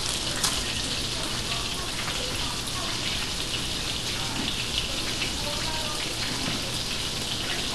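Steady sizzle and crackle of food frying in hot grease on the stove: french fries in oil and beef burger patties in a skillet.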